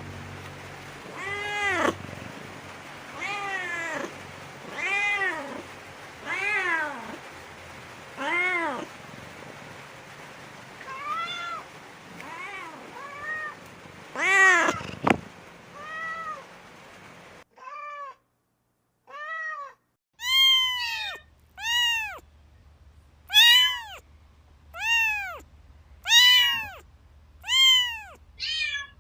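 A cat meowing over and over, calling. Each meow rises and then falls in pitch, one every second or two. About halfway through the background hiss drops away, and the meows come cleaner, louder and closer together.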